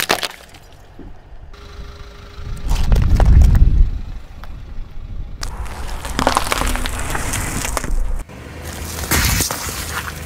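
A car tyre slowly rolling over and crushing objects in a string of short clips: a sharp crack of something brittle breaking at the start, a low rumble a few seconds in, then squashing and splattering of soft food and liquid under the tyre.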